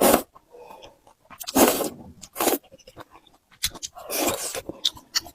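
Close-up eating of flat noodles: wet slurping and chewing in about four separate loud bursts.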